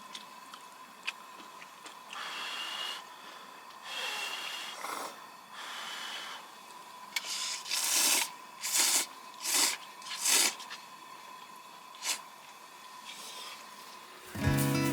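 Ramen noodles being slurped in a series of short, noisy slurps, several in quick succession about eight to ten seconds in.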